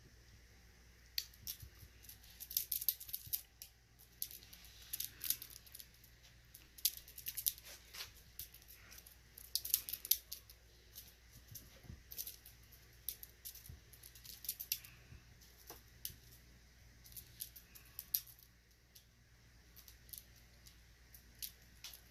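Two Russian Blue kittens wrestling on a fleece blanket: their claws and paws scrabble on the fleece in irregular bursts of scratchy, crackling rustles, with a short lull near the end.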